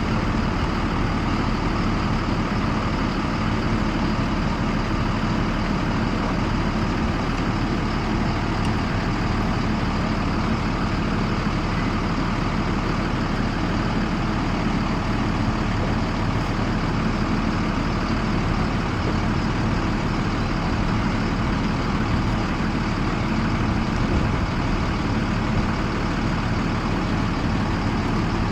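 Yellow school bus engine idling steadily, an unchanging hum with no revving.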